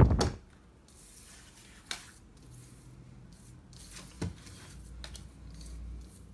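Playing cards being laid down and slid about on a tabletop: soft rubbing slides and light taps, with a sharper tap about two seconds in and another just past four seconds. A gust of wind noise cuts off in the first half-second.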